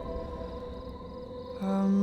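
Soft instrumental music: sustained chord tones over a low drone, slowly fading. Near the end a louder held note comes in.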